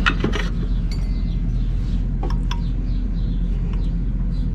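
Light metallic clinks and taps of copper refrigerant pipes being handled on an air-conditioner compressor. A few scattered strikes ring briefly, over a steady low hum.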